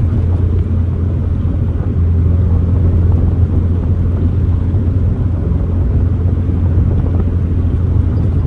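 1990 Mazda Miata's engine and road noise heard from inside the cabin while cruising: a steady low drone with no revving.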